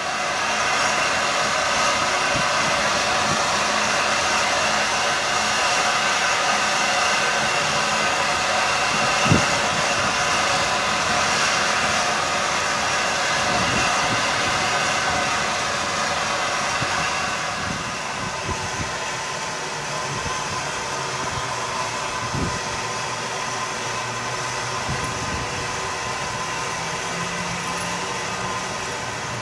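Steady hiss of steam from LMS Fowler 'Jinty' 0-6-0 tank engine 47327. The hiss eases a little about halfway through, and there is a sharp knock about nine seconds in and another later on.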